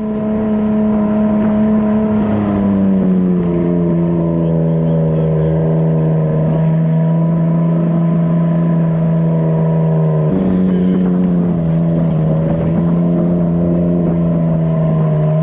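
Side-by-side UTV engine running at steady high revs. The pitch sags slightly a couple of seconds in, then jumps up sharply about ten seconds in before settling again.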